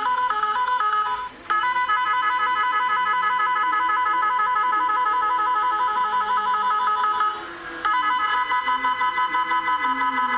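Type R 18-sound electronic horn playing its electronic melody tones and switching between sound modes. A fast two-note warble is cut off about a second and a half in and a new repeating tone pattern starts. It breaks again with a brief hiss near three-quarters of the way through, and then a rapidly pulsing tone takes over.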